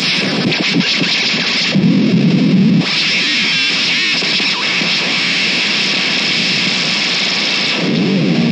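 Instrumental rock music: a noisy, heavily effected and distorted electric guitar texture, a dense wash with little bass and no drums.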